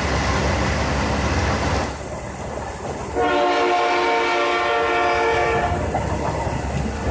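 A steady rumble for about two seconds, then a freight locomotive's air horn sounding a long chord of several notes about three seconds in, loudest for a couple of seconds and then carrying on more faintly.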